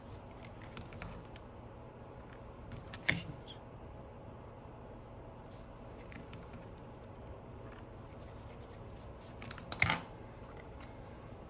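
Small metal tools and parts clicking and tapping on a phone being reassembled, with two sharper clicks about three seconds in and near the end, over a steady low hum.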